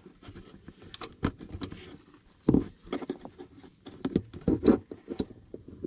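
Irregular clicks and knocks of hands, tools and parts being handled in a mini excavator's engine compartment. The strongest knocks come about two and a half seconds in and again between four and five seconds in.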